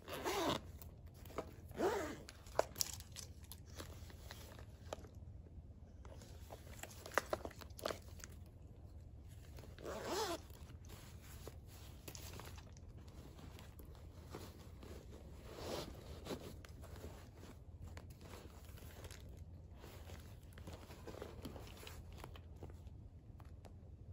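Hands handling plastic and vinyl cosmetic pouches: scattered crinkling and rustling, with a few sharper handling clicks in between.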